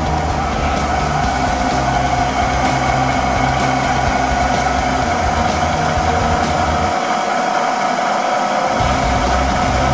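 1996 Monforts KNC 5 CNC lathe with its spindle and chuck turning, running steadily with a constant whine over a low mechanical rumble. The rumble drops away for about two seconds near the end.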